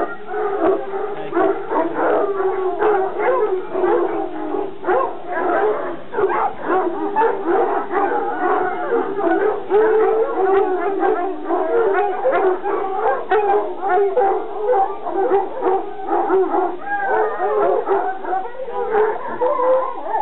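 A large pack of Anglo-French tricolour hunting hounds baying and howling together in a loud, continuous chorus of many overlapping voices. The hounds are clamouring ahead of their feed.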